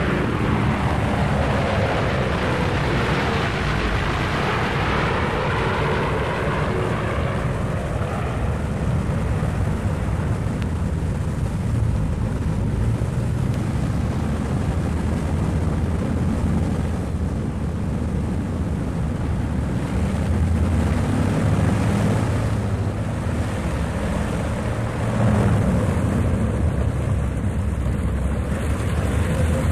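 Twin-engine propeller airliner's engines running, from the airport sound-effects track of a 1958 stereo demonstration record. In the first several seconds the engine tones bend in pitch, then settle into steady running.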